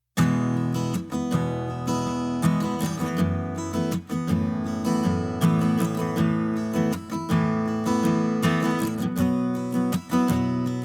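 Background music of strummed acoustic guitar, starting abruptly right after a short silence.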